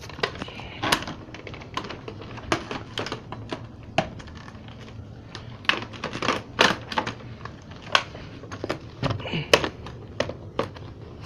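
Irregular sharp clicks and knocks of hard plastic vacuum-cleaner parts being handled and fitted together, as a Shark Rotator Professional Lift-Away is set up in its canister mode.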